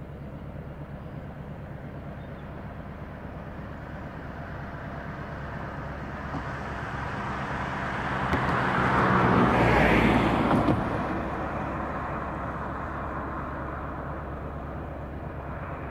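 A car passing on the road: tyre and engine noise swells, peaks about ten seconds in and fades away. Underneath runs a steady low drone, the distant diesel freight locomotive approaching.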